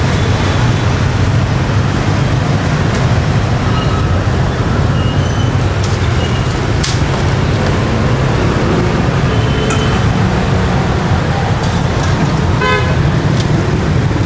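Steady street traffic rumble with short horn toots here and there, and a longer, fuller honk near the end.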